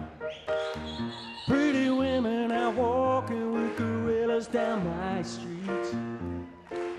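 Grand piano playing repeated chords over a steady low bass pulse, with a man's voice singing long held notes from about a second and a half in until about five seconds.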